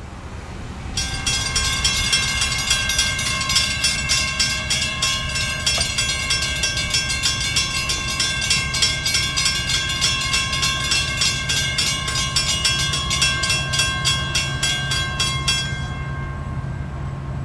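Railroad grade-crossing warning bells ringing rhythmically as the crossing gates lower, several bells overlapping, cutting off suddenly near the end once the gates are down. A steady low rumble runs underneath.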